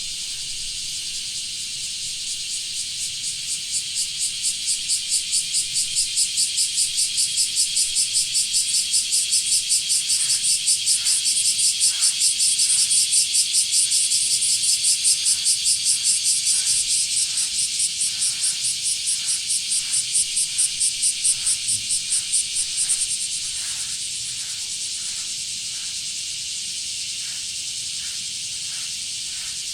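Blackish cicadas (Cryptotympana facialis) singing: a steady high, hissing cicada chorus, joined a few seconds in by a loud, rapidly pulsing call of about two to three pulses a second that builds, holds, then stops abruptly about three quarters of the way through.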